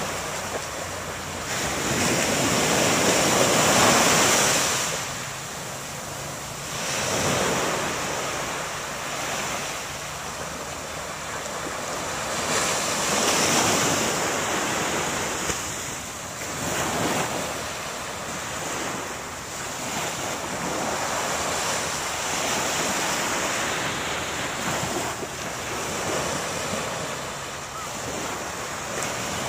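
Small waves breaking and washing up onto a sandy beach, surging louder every few seconds and then easing off, with wind buffeting the microphone.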